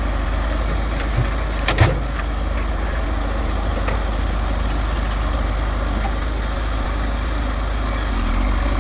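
John Deere 4620's six-cylinder diesel engine running steadily as the tractor works its loader and grapple, with a couple of short knocks about two seconds in.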